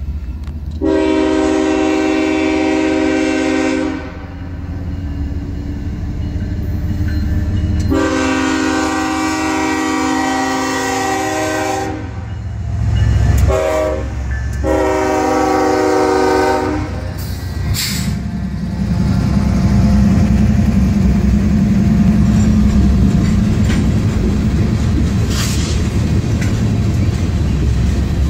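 BNSF freight locomotive's Nathan K5HL five-chime air horn blowing the grade-crossing signal: two long blasts, a short one and a long one. Then the diesel locomotives rumble past close by, followed by the freight cars rolling over the rails.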